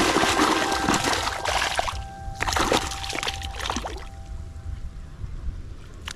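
Shallow muddy water splashing and sloshing as a woven bamboo plunge-basket fish trap is worked down into the mud by hand. Dense splashing fills the first two seconds, a few separate splashes follow, and it grows quieter near the end.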